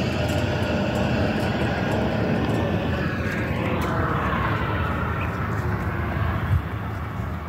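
Steady engine rumble with a rushing hiss over it, easing slightly near the end.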